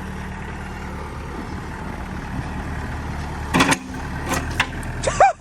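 A vehicle's engine running steadily at a low, even speed, with two short vocal sounds over it, about three and a half seconds in and near the end.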